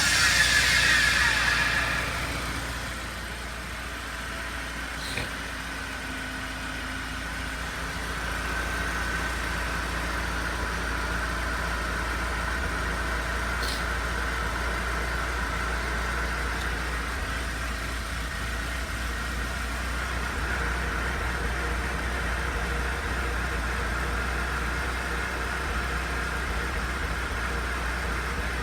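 Mercedes-Benz C200 secondary air pump whining loudly, then falling in pitch and dying away over the first two seconds. The engine carries on idling steadily with a faint high tone. The pump's noise is the abnormal noise that the owner traced to a failing air pump needing replacement.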